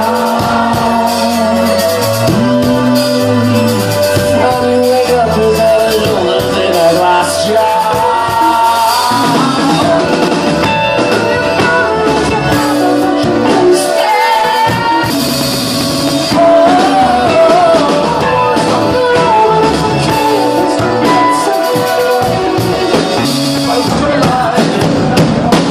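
Indie rock band playing live through a venue PA: drums, bass and keyboards, with sung vocal lines that bend in pitch through the middle of the stretch.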